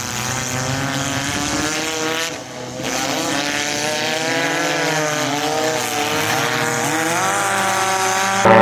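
Several figure-8 dirt-track race cars' engines running and revving together, heard from trackside, their pitches rising and falling. The sound dips briefly about two and a half seconds in.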